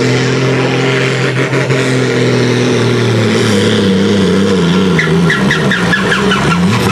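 International Harvester pulling tractor's diesel engine running hard under load while pulling the sled. Its note holds steady for about three seconds, then drops and wavers as the engine labours.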